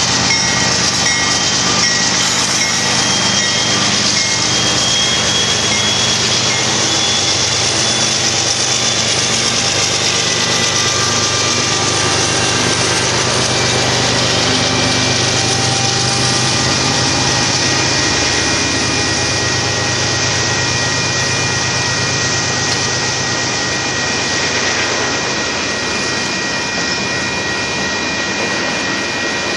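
Union Pacific freight train rolling past, a steady loud rumble and clatter of wheels on rail with long, high squealing tones from the wheels. The locomotives' low diesel drone fades out a little over halfway through.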